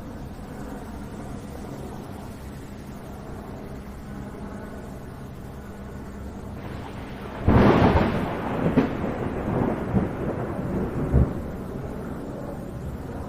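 Steady rain, then about seven and a half seconds in a loud clap of thunder that rumbles on with crackles and fades over the following seconds.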